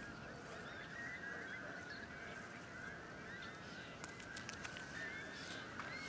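Faint tidal-mudflat ambience of many distant birds calling at once, a steady chatter of short calls, with a few faint clicks about four seconds in.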